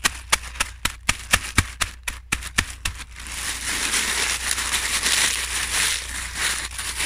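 Cheesy tortilla crisps being crushed by hand inside a plastic bag into fine crumbs: separate sharp crunching cracks for about three seconds, then a denser, steady crackle and rustle of crisps and bag.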